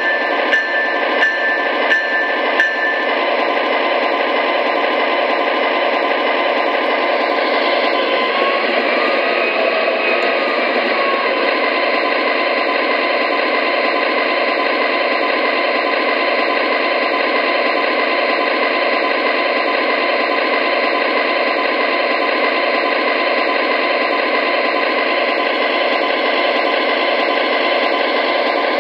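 Onboard sound system of an MTH RailKing Imperial ES44AC O-gauge model locomotive playing its GE diesel engine sound, running steadily through the model's small speaker with no deep bass. A few sharp ticks in the first few seconds.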